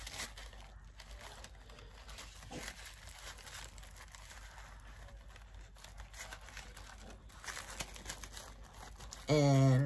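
Thin clear plastic packaging crinkling as it is handled and pulled open, faint, with a few louder crinkles near the end.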